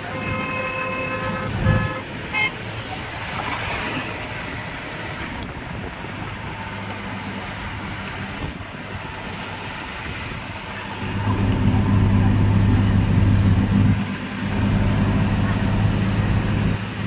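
Road vehicle noise: a horn sounds for about two seconds, with a short toot just after. Later a vehicle engine's low, steady hum comes in loud about eleven seconds in.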